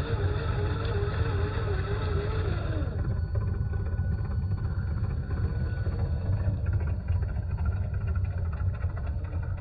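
Radio-controlled RC4WD Trail Finder 2 scale crawler truck running, with a wavering motor note that drops away about three seconds in over a steady low rumble.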